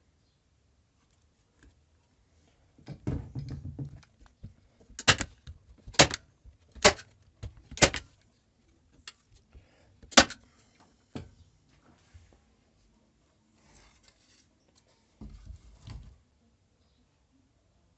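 Workshop handling sounds: a short scraping rumble, then a series of sharp knocks about a second apart, with a last scrape near the end.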